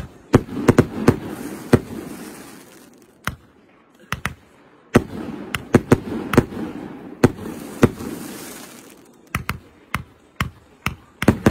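Aerial fireworks going off: clusters of sharp bangs with a rumbling echo after them, and quieter lulls about three seconds in and again about eight seconds in. The bangs come thickest near the end.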